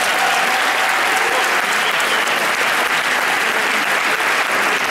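Large theatre audience applauding steadily, many hands clapping in a dense, even wash.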